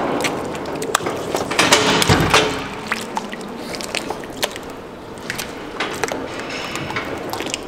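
Rattling and clicking of a metal cattle crush, with a heavier knock about two seconds in.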